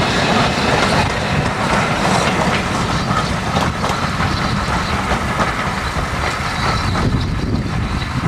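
A train hauled by BR Standard 4 tank locomotive No. 80135 rolling past on the rails, with the wheels clicking over the rail joints. The sound eases off slightly toward the end.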